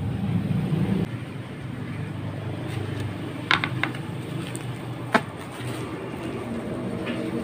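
Steady low background rumble, louder for the first second. A few sharp clicks and knocks come about halfway through, and one more a little later.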